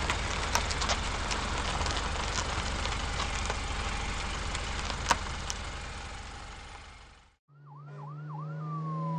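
A compact car's engine running steadily with a low rumble, fading out about seven seconds in. After a brief gap an ambulance siren starts: four quick whoops, then a long slow wail that falls and begins to rise again, over a steady low drone.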